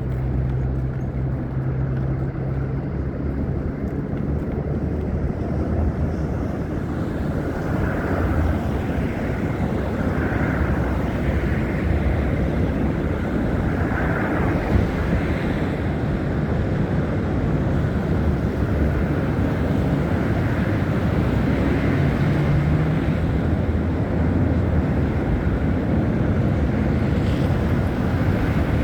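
Steady low rumble of city traffic mixed with wind buffeting the phone's microphone.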